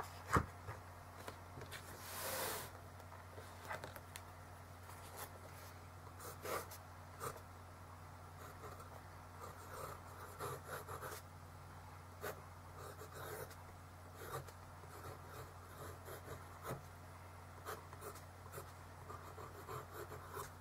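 Fountain pen nib scratching on a spiral notepad in many short strokes, over a steady low hum. A sharp knock about half a second in is the loudest sound, and a brief rustle follows around two seconds in.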